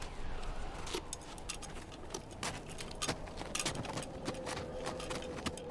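A series of irregular sharp clicks and taps over a low rumbling bed. A faint steady tone comes in about four seconds in.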